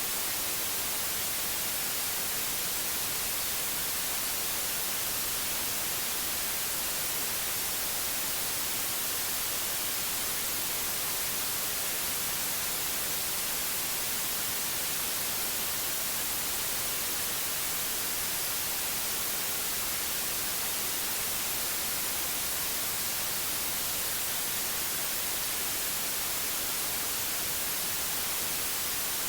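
Steady white noise: an even, unbroken hiss, strongest in the high end.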